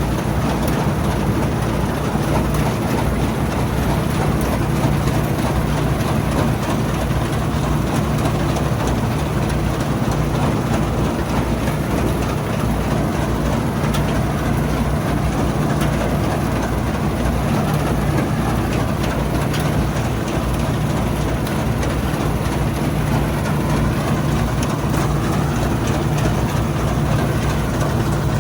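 Old Bizon combine harvester's diesel engine running steadily: a loud, even drone that does not change.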